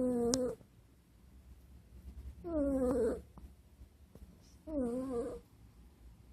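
Snoring, each breath carrying a pitched, whining squeak: three of them about two seconds apart, the first already under way at the start.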